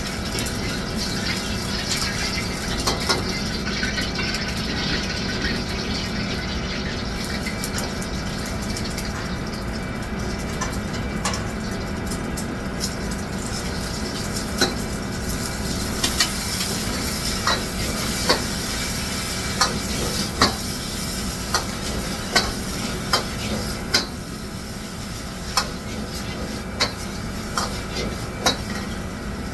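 Food cooking in a pan, with a steady sizzle and hiss under a low hum. Sharp metal clinks of a utensil stirring and striking the pan come through, more often in the second half at about one a second.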